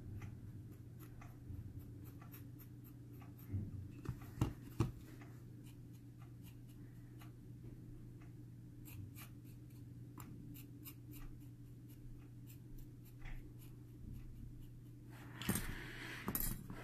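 Faint small clicks and scratches of metal tweezers working cotton wicks around a coil on a rebuildable atomizer deck, with a few sharper clicks about four seconds in and a louder rustling stretch near the end, over a steady low hum.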